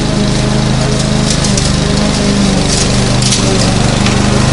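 Lawn mower engine running steadily under load, with brief crackles from cut grass now and then.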